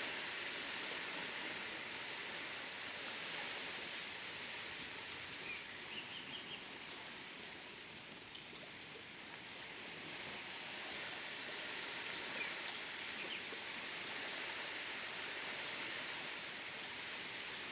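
Waves washing in the bay, a steady hiss of water that eases off midway and swells again. A few faint, short bird chirps come through about six seconds in and again near the end.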